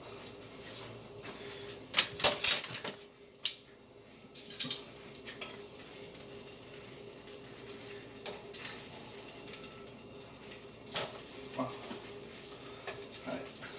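A utensil scraping and clinking against a skillet in short bursts as butter is pushed around the pan, loudest about two seconds in, over a steady faint hiss and low hum.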